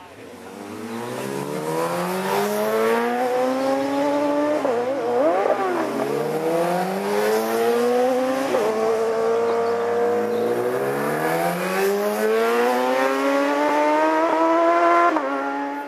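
Road-racing motorcycle engine revving hard, climbing in pitch through the gears, with sudden drops at gear changes about eight and a half seconds in and again near the end. About five seconds in the pitch jumps briefly up and down, as in blipped downshifts for the hairpin. It grows loud over the first two seconds and fades at the very end.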